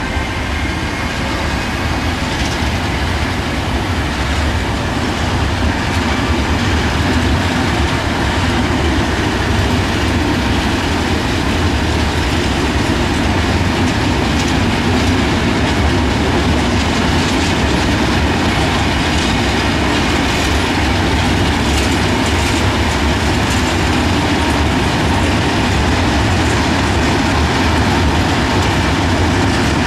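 Freight train of open goods wagons rolling past: a loud, steady rumble of steel wheels on rail, with clickety-clack over the rail joints.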